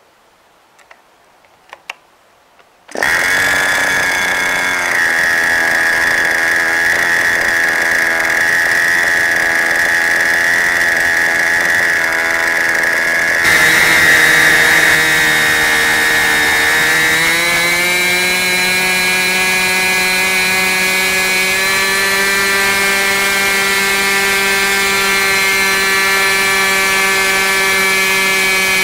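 OS 46 LA two-stroke glow engine swinging an 11x6 propeller: after a few light clicks it catches about three seconds in and runs loud and steady at a high pitch. Past the middle its pitch climbs and settles higher as it comes up toward peak RPM, about 11,500 rpm.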